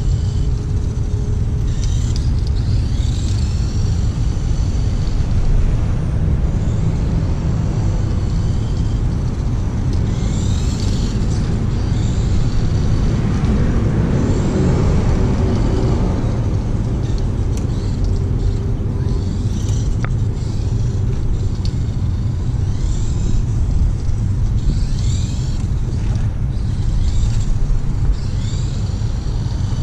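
Steady low outdoor rumble, with short high chirping calls repeating every couple of seconds and a broad swell of noise about halfway through.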